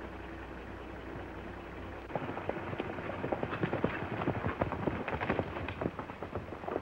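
A steady low car-engine hum, then about two seconds in a quick, irregular clatter of hoofbeats from several galloping horses.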